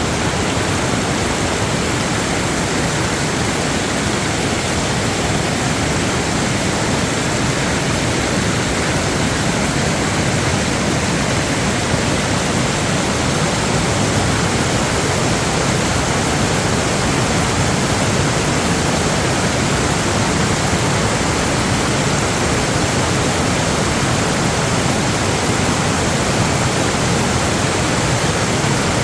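Steady, loud rushing of water with no breaks or changes, as from floodwater running hard or heavy rain.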